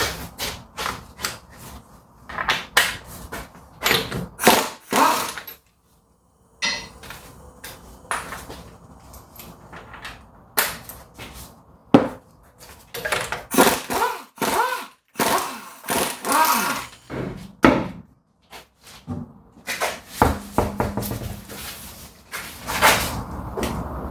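Mechanic's tools at work on a car's wheel and brake: a run of irregular metallic clanks, knocks and short tool bursts, broken twice by brief dead-silent gaps where the footage is cut.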